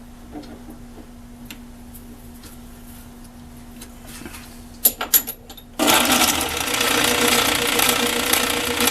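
A workshop machine hums quietly, a few sharp clicks sound about five seconds in, then it starts up loud with a rough, steady buzzing run.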